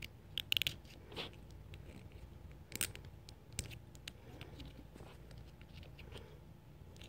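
Small plastic action-figure parts and clear plastic packaging being handled: a few scattered light clicks and crinkles over faint hiss, with a sharper cluster about half a second in and another near three seconds.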